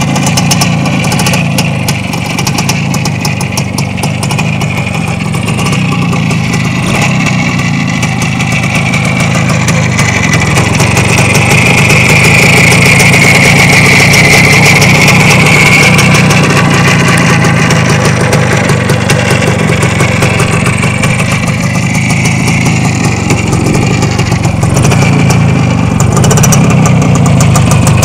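Single-cylinder two-stroke engine of a 1979 Neval Minsk 125 motorcycle idling steadily, a little louder from about ten seconds in.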